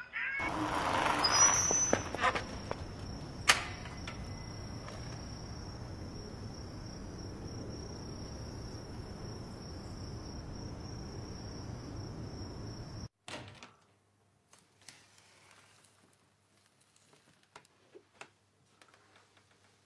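A steady hiss of background ambience with a steady high drone over it and a sharp knock about three and a half seconds in. It cuts off suddenly about 13 seconds in, leaving near silence with faint small clicks.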